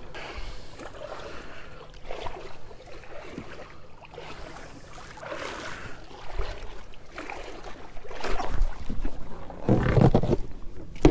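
Handling noise from a camera knocked and rubbed against a boat's padded deck: irregular scuffs and bumps that grow louder and rumbling in the last few seconds, with some wind on the microphone.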